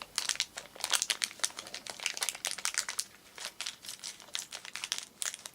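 A plastic surprise-pack wrapper crinkling and crackling as it is handled and cut open with scissors, in quick irregular bursts, with a short lull about three seconds in.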